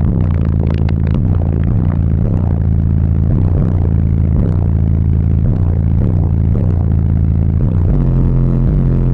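Bass-heavy music played very loud through a DC Audio XL 18-inch subwoofer: deep bass notes that slide downward about every half second, changing to a steadier deep note about 8 s in.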